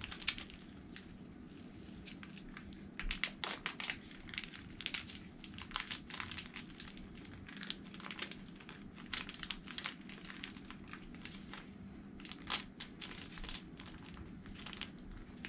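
Plastic piping bag of soap frosting crinkling as it is handled: irregular scattered crackles, with a steady low hum underneath.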